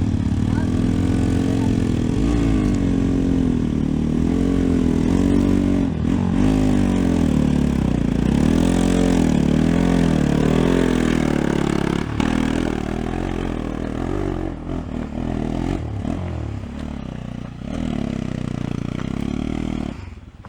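Motorcycle engine working hard on a steep off-road climb, its pitch rising and falling again and again as the throttle is worked. It eases somewhat after about twelve seconds and cuts off at the end.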